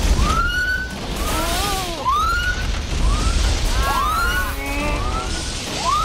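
Science-fiction battle sound effects: a steady low rumble with rising, whistling glides about once a second, several overlapping and some falling away, over a film score.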